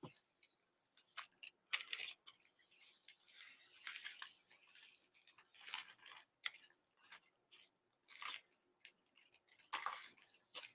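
Scissors cutting along the side seam of a thin black plastic lawn-and-leaf bag, faint irregular snips mixed with crinkling of the plastic sheet.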